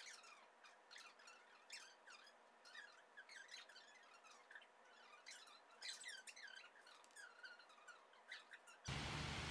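Faint, quick, high-pitched chirps and squeaks scattered irregularly over quiet room tone. Near the end the sound changes abruptly to a steady, louder rush of splashing fountain water.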